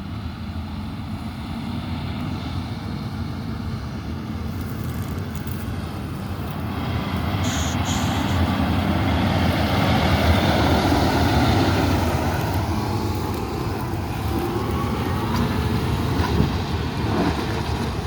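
Diesel engine of large farm machinery running, growing louder to its loudest about ten seconds in and then easing off as it moves past.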